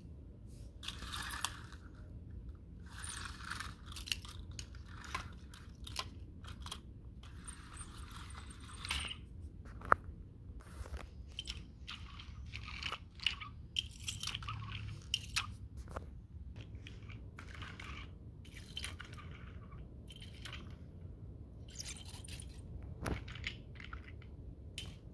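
Faint scraping and rustling with occasional sharp clicks as small die-cast and plastic toy trains and wagons are handled and pushed across a carpet.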